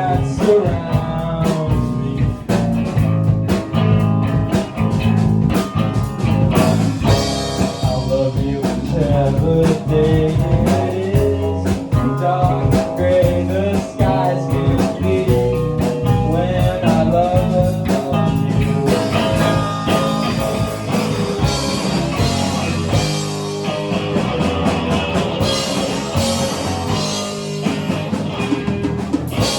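Music: a blues-rock song with a singing voice and guitar over a steady beat.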